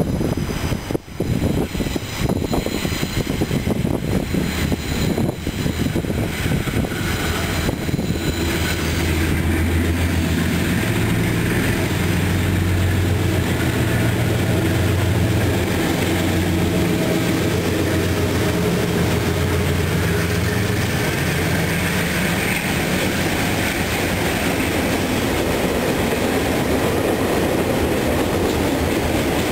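A DXB-class diesel-electric locomotive hauling a freight train approaches and passes, its diesel engine drone coming in strongly about a third of the way in and holding steady. Near the end it gives way to the freight wagons rolling by with a clatter of wheels on the rails.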